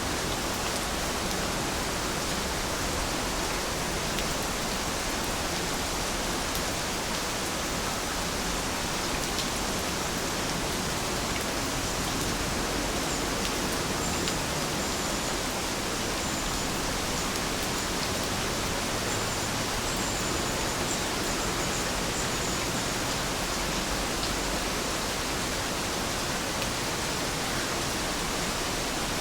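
Steady rainfall, an even hiss of many drops with no let-up. A few faint, short high chirps come through about halfway in.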